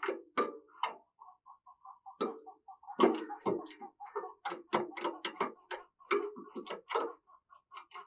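Irregular sharp taps and clicks from a spotted dove moving about its wire cage and perch. A faint, fast run of short chirps sounds about a second in and again near the end.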